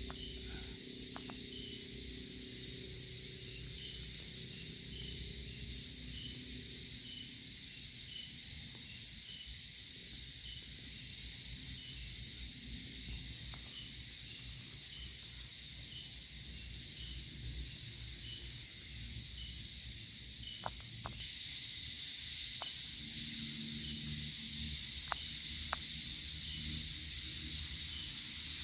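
Insects chirping steadily, with a short chirp repeating about twice a second over a continuous high trill, and a few faint clicks.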